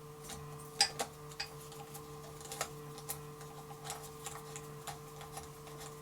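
Light, irregular metallic clicks and ticks as a large bolt for the exhaust flange bracket is started and turned into its thread, over a steady low electrical hum.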